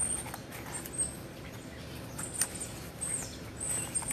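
Small birds chirping in short, high-pitched notes, one note gliding downward about three seconds in. Under them, a few brief clicks and rustles from paper tubes and a yarn-wrapped plastic bottle being handled.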